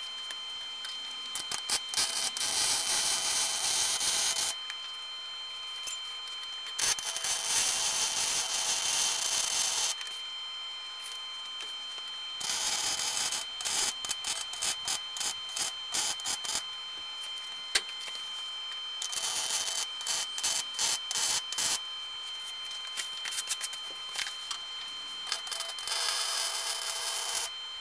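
Wire-feed welder arc crackling in five runs of about two to four seconds each, with pauses between; the later runs come in short on-off bursts.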